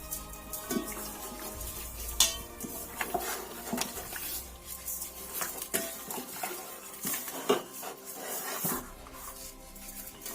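Dishes and utensils clinking and knocking at irregular intervals as a raw chicken is salted in a dish.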